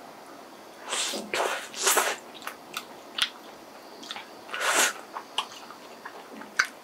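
Toasted bread being bitten and chewed: crisp crunches, loudest in the first two seconds and again near five seconds, with short sharp clicks in between.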